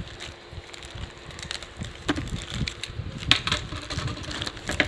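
Plastic courier mailer bag crinkling and rustling as it is opened by hand, with irregular crackles. The sharpest crackles come a little past three seconds in and again near the end.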